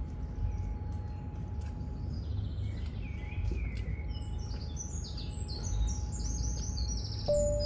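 Birds chirping and singing, their quick high chirps coming thicker in the second half, over a steady low rumble. A steady tone comes in near the end.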